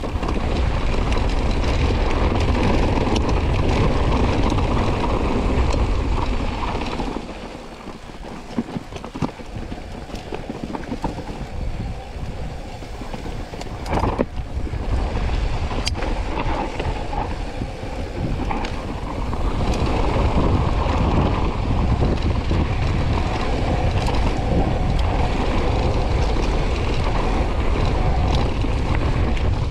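Wind buffeting the microphone and a mountain bike rolling fast down a rough trail, a steady rush of noise. The noise drops for several seconds in the middle, where a couple of sharp knocks stand out, then rises again.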